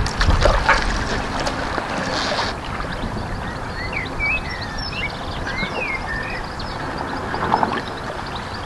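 Kayak paddle strokes splashing and water slapping against an inflatable kayak, with wind on the microphone, for the first two and a half seconds. Then the sound drops to quieter water, with birds chirping and a single paddle stroke splashing near the end.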